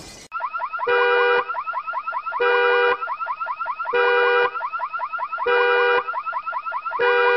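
Electronic alarm sounding: a fast warbling chirp, broken about every one and a half seconds by a half-second steady multi-tone blare, repeating evenly.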